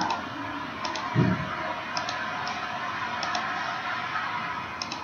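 Computer mouse clicking a few times, some clicks in quick pairs, over a steady low hiss, with a brief low sound about a second in.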